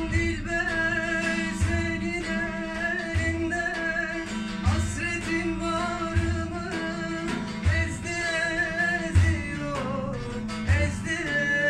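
Live singing with a plucked long-necked lute, over a large frame drum struck in a slow, steady beat of one deep stroke about every second and a half.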